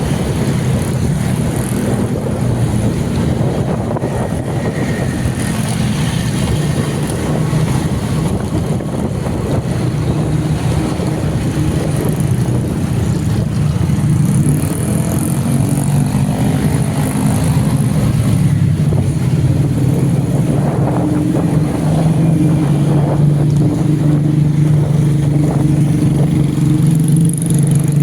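A motor vehicle's engine running steadily under road and wind noise, with the engine note rising as it speeds up around the middle.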